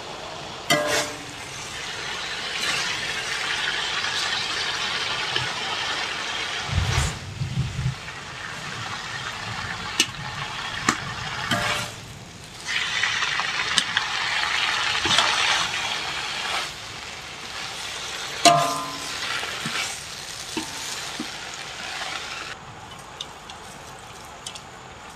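Chopped Japanese papaya leaves being stir-fried in a metal wok, with a hiss that comes and goes as a metal spatula turns them. The spatula scrapes and ticks against the wok, with two ringing clinks about a second in and about 18 seconds in.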